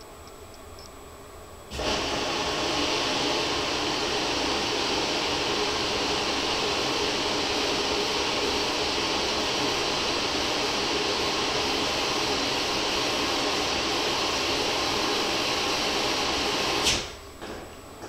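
Front-loading washing machine filling with water: a steady rushing hiss starts abruptly about two seconds in and cuts off with a click near the end, as the water inlet valve opens and then shuts.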